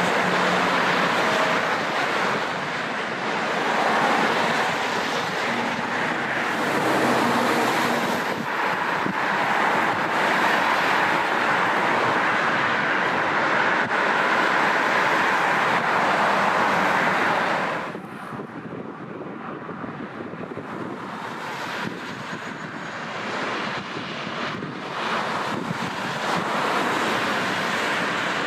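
Loud, steady roar of an Airbus A380-861's four Engine Alliance GP7200 turbofans during the landing, with wind buffeting the microphone. About eighteen seconds in the roar drops off suddenly to a quieter, gusty rumble.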